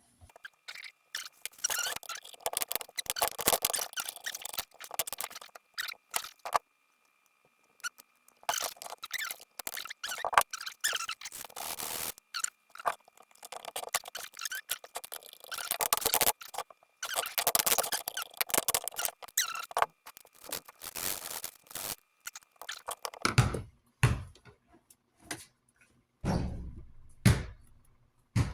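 Hands working on metal and plastic fan parts: repeated scraping and rubbing with faint squeaks, then a few low thumps near the end.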